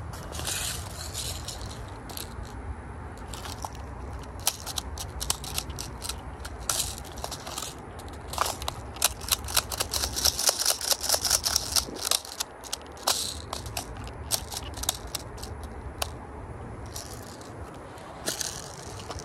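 Plastic and metal clicks and rattles from a CO2 BB rifle magazine being handled and loaded by hand, in an irregular run that is thickest around the middle. Short rustling bursts come near the start and again near the end.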